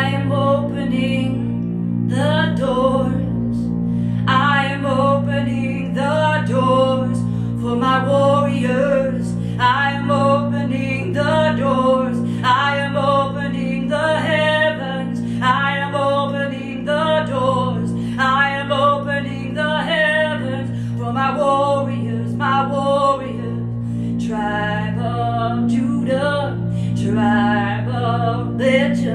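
Wordless singing of a native-style worship song: a solo voice in repeated wavering phrases over a steady low drone of held keyboard-like tones.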